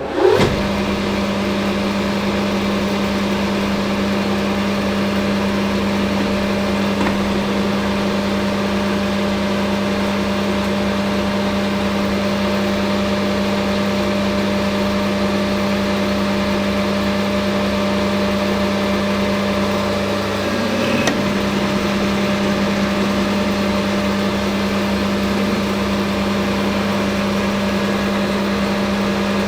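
Hafco AL960B metal lathe running steadily with a constant motor and gear hum, likely taking a light finishing pass. A single click sounds about twenty seconds in.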